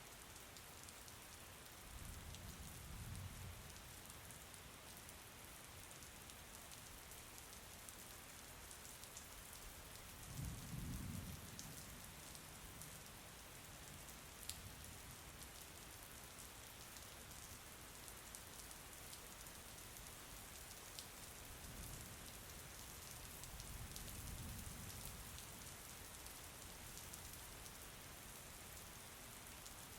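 Steady rain falling, with scattered sharper drop ticks on top. Three brief low rumbles swell up and fade, about two, ten and twenty-three seconds in.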